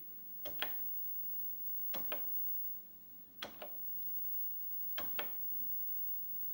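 Keys clicking on a Commodore PET 3032 keyboard: four pairs of sharp clicks, one pair about every second and a half, over a faint steady hum.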